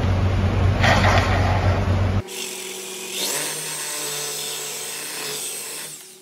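DeWalt reciprocating saw running and cutting through a metal tube clamped in a vise, a steady motor hum with the rasp of the blade, cutting off abruptly about two seconds in. Quieter handling sounds follow over a faint hum.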